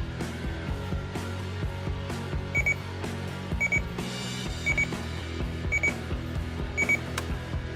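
Toy police-truck alarm clock's alarm beeping in quick pairs, about one pair a second, five times, over background music; a single click follows near the end.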